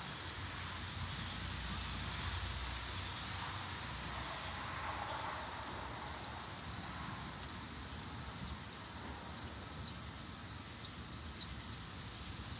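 Steady outdoor night ambience: an even wash of low background noise with a constant high-pitched insect chorus above it.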